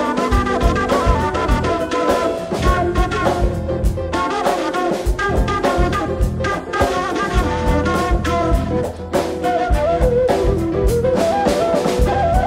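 Big band playing jazz with brass and a drum kit keeping a steady beat, while a kaval, the Bulgarian end-blown wooden flute, plays a winding melodic line over the band.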